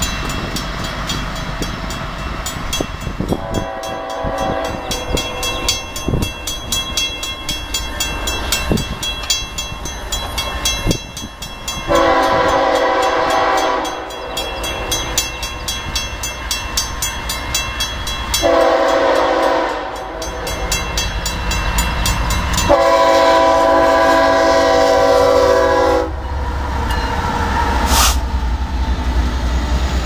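Diesel freight locomotive's multi-tone air horn at a grade crossing: a faint blast about three seconds in, then three long, loud blasts, with the crossing signal bell ringing steadily underneath. Near the end the horn stops and the locomotives rumble past.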